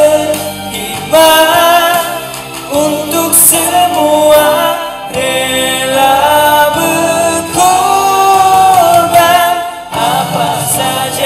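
A young man singing a Malay patriotic song solo over backing music, in phrases of long held notes with vibrato.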